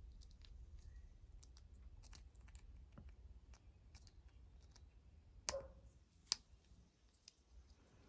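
Faint, scattered clicks of the small plastic parts of a chainsaw slide-type on/off switch being handled and fitted together, with a sharper click about five and a half seconds in and another just under a second later.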